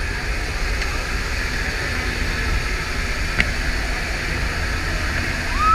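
Steady roar of a jump plane's engine and the wind rushing past its open door in flight, a deep rumble under a constant hiss. A single click about halfway through and a brief rising-and-falling tone at the very end.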